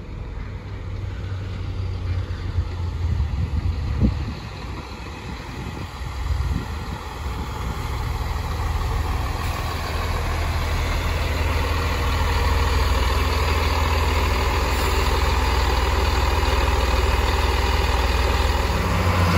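Chiltern Railways Class 165 diesel multiple units running on their underfloor diesel engines, a low rumble with wheel and mechanical noise that grows louder over the first half and then holds steady.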